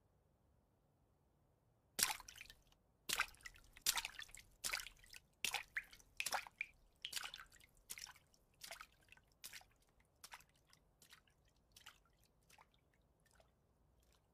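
Footsteps of leather loafers splashing on wet pavement, starting about two seconds in at a steady walking pace of roughly one step every 0.7 s and growing fainter as the walker moves away.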